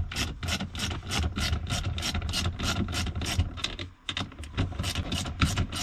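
Hand ratchet clicking rapidly and evenly, about five clicks a second, as it backs off a Mini Cooper R50's handbrake cable adjuster nut to slacken the cable, with a brief pause about four seconds in.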